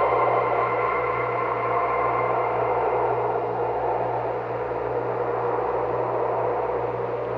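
Horror ambience sound effect: a steady, dark drone made of a low hum, a rough noisy layer and held ringing tones, the highest of which fades away a couple of seconds in.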